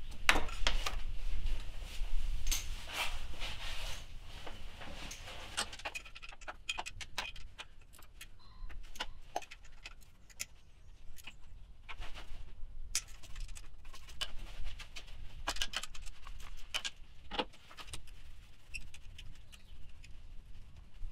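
Irregular metallic clicks and clinks of hand tools, a 10mm socket being worked on the bolts of an engine's upper timing cover. The clicking comes in clusters, busiest at the start and again about two thirds of the way through, with a quieter stretch in between.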